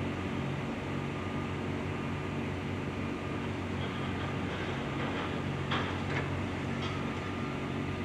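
Komatsu PC350 hydraulic excavator's diesel engine running steadily while its breaker attachment is positioned over the bridge deck, with a couple of sharp knocks about six seconds in.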